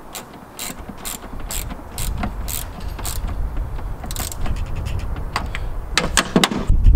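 Hand ratchet clicking in short bursts about twice a second as a bolt is wound into a riv nut whose threads are tight from being over-squeezed, with a few sharper knocks near the end.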